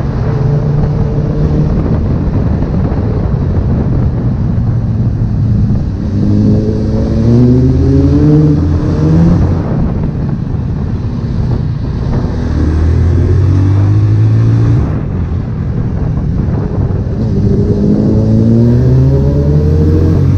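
Honda CB1000R's inline-four engine pulling on the move, over wind and road noise. The engine pitch climbs under acceleration about six seconds in and again near the end, with a short drop in between as the throttle eases.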